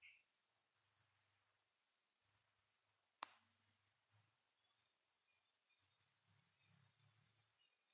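Near silence, broken by faint, irregular high clicks that often come in pairs, and one sharper click about three seconds in.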